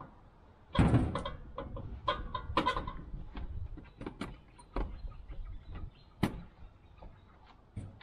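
Tools clanking and knocking as they are rummaged through in a steel yard cart: a run of sharp separate clatters, the loudest about a second in.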